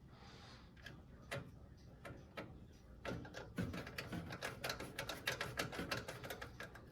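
Small metallic clicks and ticks of a screwdriver driving a screw into a motherboard standoff in a PC case. There are a few scattered clicks at first, then a quick irregular run of them from about three seconds in.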